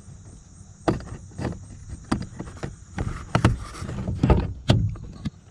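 Handling noise from reconnecting the power window's electrical connector inside a car door panel: about eight sharp plastic clicks and knocks, with rubbing and rattling in the middle.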